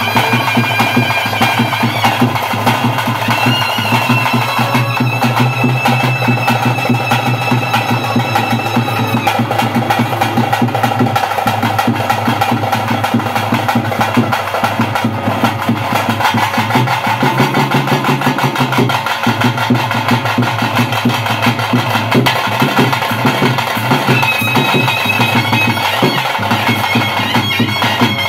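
Live kola ritual music: fast, dense drumming that never stops, with a wind instrument holding long high notes over it.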